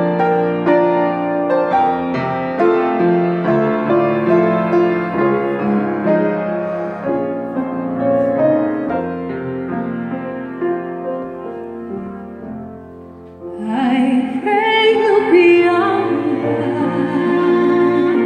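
Grand piano playing a slow introduction of flowing notes that thins out and quietens, then about thirteen and a half seconds in a bowed violin comes in with a sustained melody with vibrato over the piano.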